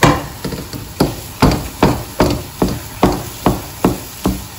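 Wooden spoon knocking against a wok as it stirs and presses down thick semolina halwa paste, in a steady rhythm of about two to three knocks a second.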